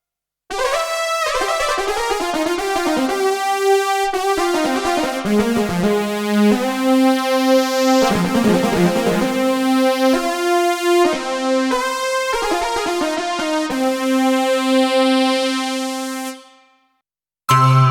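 Yamaha TG-77 FM synthesizer module playing a keyboard-like patch: a melody over held chords. It fades out about 16 seconds in, and another patch starts just before the end.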